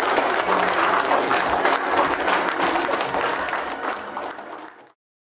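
Audience of schoolchildren and adults applauding, a dense patter of many hands clapping that fades out near the end.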